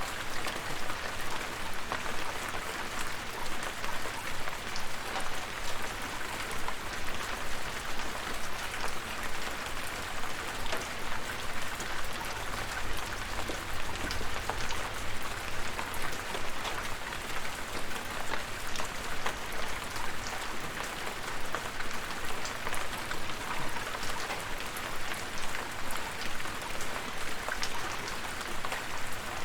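Steady rain falling, a dense patter of drops hitting a surface.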